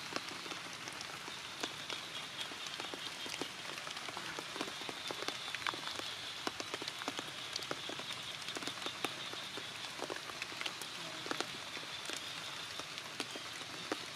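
Heavy rain falling: a steady patter with many sharp drips and splashes of single drops, over a steady high-pitched tone.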